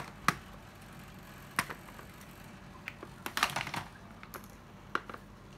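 Hard plastic clicks and knocks of cordless drills being handled and set down on a surface: a sharp click just after the start, another about a second and a half in, a short clatter of several knocks at about three and a half seconds, and one more near the end.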